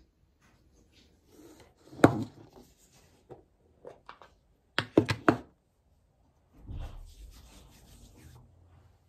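A loud knock about two seconds in, then a quick run of sharp plastic clicks from a tub of hand cream being opened, followed by hands rubbing cream together for about two seconds.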